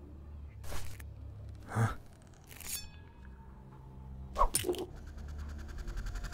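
Eggshell cracking sound effects: several short, sudden cracks about a second apart over a low steady drone.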